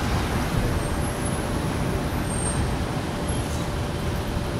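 Steady road traffic noise: an even low rumble and hiss of passing vehicles.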